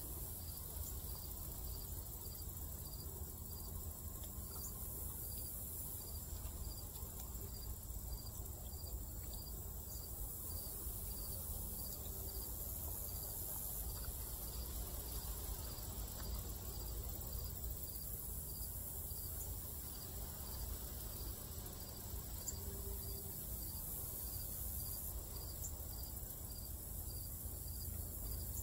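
Insect chirping steadily, with short high chirps repeating evenly about twice a second, over a constant high hiss and a low rumble.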